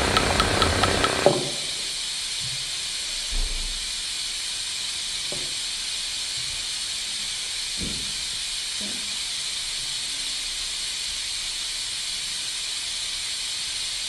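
A loud, busy noise with rapid even ticking cuts off suddenly about a second in, leaving a steady white-noise hiss. A few faint soft knocks come through the hiss.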